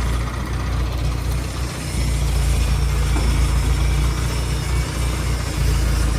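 A heavy engine running steadily, growing a little louder about two seconds in.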